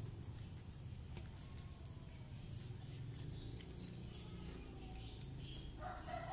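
Clear slime being stretched by hand, giving quiet sticky clicks and small pops over a low background hum. A short animal call comes in near the end.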